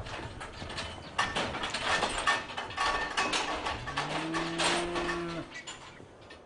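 Rapid metal rattling and clanging with some ringing notes, and one low cow moo about four seconds in that rises, then holds for over a second.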